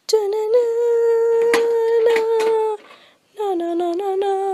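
A person humming two long held notes, the second lower than the first, with a few sharp clicks over them.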